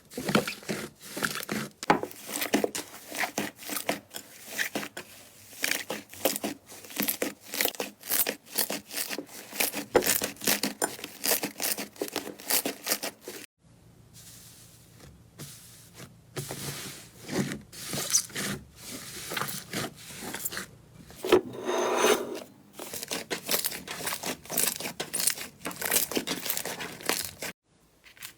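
Slime being squeezed and worked by hand, giving a dense run of small crackles and pops. There is a short break a little before halfway, and one louder squish about two-thirds of the way through.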